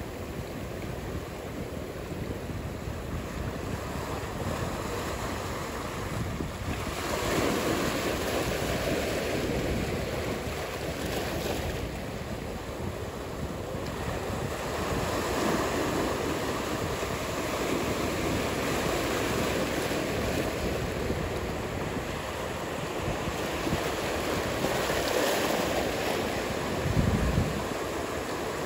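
Ocean surf and wind: a steady rushing noise that swells in surges several times as waves break.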